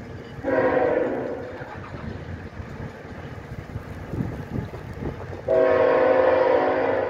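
Approaching diesel locomotive's multi-note air horn: one blast of about a second and a half, then a longer blast starting about two-thirds of the way in, over the low rumble of the train.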